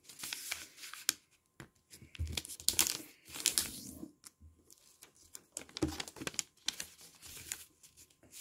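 A square of blue origami paper being folded corner to corner by hand, creased flat and opened out again: uneven bursts of paper crinkling and rustling.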